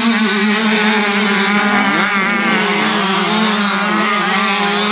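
Several 125cc race motorcycles running hard on a grass track: one steady, high-revving engine note throughout, with other bikes' engines rising and falling in pitch over it.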